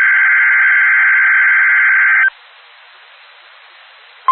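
Weather radio emergency-alert data burst: a loud, harsh buzz of rapid digital tones carrying the SAME test header, which cuts off about two seconds in. Faint radio hiss follows, and at the very end the steady warning alarm tone of about 1 kHz switches on.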